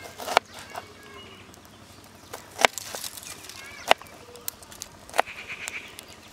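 Knife strokes on a plastic cutting board while an onion is diced: a few sharp, separate knocks, one every second or so.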